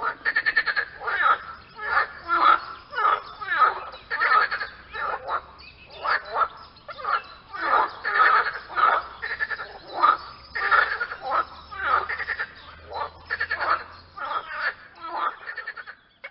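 Frog calling: a steady series of croaks, about one to two a second, each croak a quick rattle of pulses.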